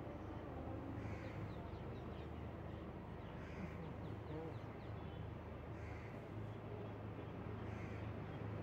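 Crows cawing, about four calls spaced roughly two seconds apart, over a low steady hum.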